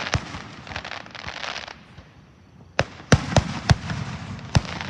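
Fireworks bursting: a crackling hiss fading out in the first second and a half, a short lull, then a quick run of four or five sharp bangs about three seconds in and one more near the end.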